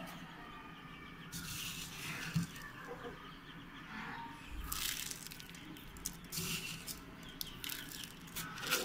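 Dry crumbled chick feed rustling as a hand scoops it from a plate and pours it into a small plastic feeder, in several short bursts.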